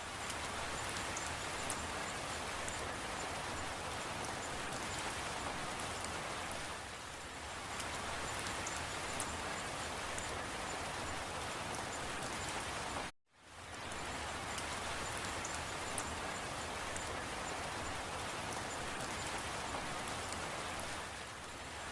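Steady rain falling, with the patter of individual drops. About thirteen seconds in the sound cuts to silence for a fraction of a second, then resumes: a seam in the looped recording.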